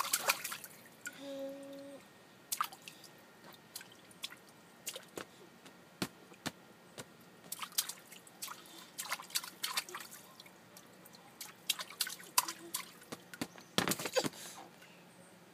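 A toddler's hands splashing and patting shallow water in an inflatable paddling pool: scattered light splashes and drips, busiest at the start and again near the end.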